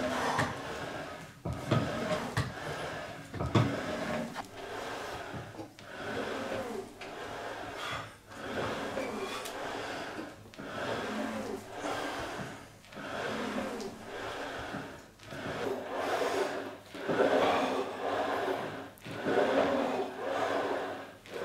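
SportPlus SP-MR-020 rowing machine with a magnetic brake being rowed steadily, about one stroke every two seconds: the flywheel whirs up on each pull and the seat rolls along the rail. The rower breathes hard in time with the strokes.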